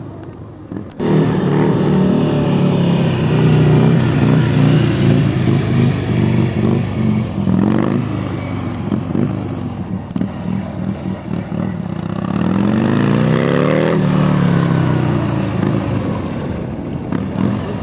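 Motorcycle engine running as the bike is ridden around, coming in loudly about a second in, its note falling and rising several times as the throttle is worked.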